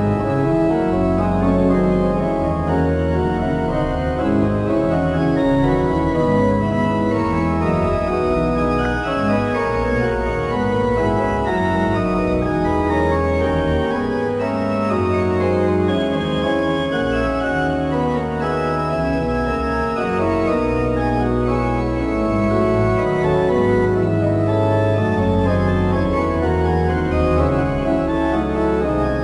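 Organ music: many sustained notes layered over a deep bass line, at a steady level.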